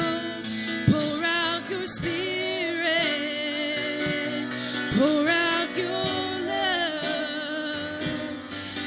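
Gospel worship song: a singer holds long, wavering notes that slide up into each phrase, over a steady instrumental backing.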